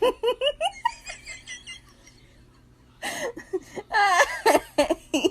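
People laughing: a quick run of giggles at the start, then after a short lull another, louder burst of laughter about three seconds in.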